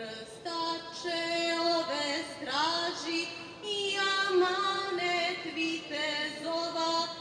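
A woman singing a slow melody in long held notes, sliding up in pitch about two and a half seconds in.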